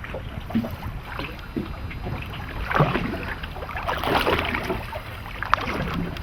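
Small boat drifting on open water, with wind buffeting the microphone and water against the hull as a steady low rumble. Louder short splashy noises come about three seconds in and again around four seconds.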